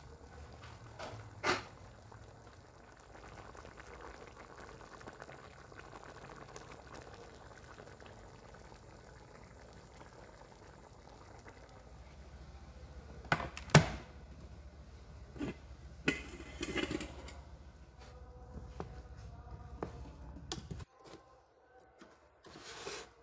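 Cooking in a pot: liquid sounds and several sharp clinks and knocks of utensils against kitchenware, over a steady low hum that cuts off suddenly near the end.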